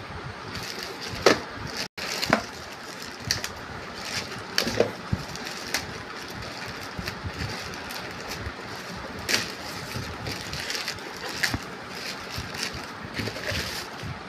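Plastic courier mailer bag being crinkled, pulled and torn open by hand: irregular rustling and sharp crackles over a steady hiss.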